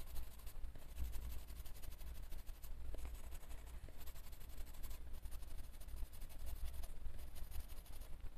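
Coloured pencil shading on colouring-book paper: a soft, quiet scratching of many small, quick strokes.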